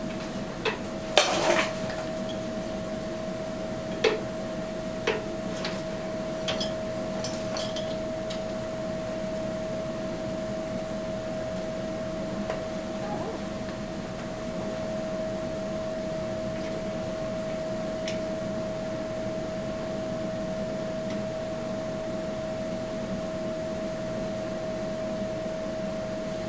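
Metal tools and bolts clinking and tapping, several sharp clinks in the first eight seconds and one more later on. Under them runs a steady one-pitch hum.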